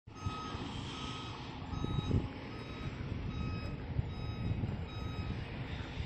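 A heavy vehicle's reversing alarm giving evenly spaced beeps over the low running of a diesel engine. The beeps stop shortly before the end.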